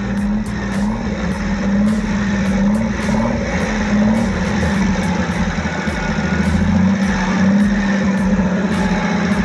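Off-road buggy's engine running hard at full throttle, its pitch rising and falling repeatedly as the rear tires spin in deep mud.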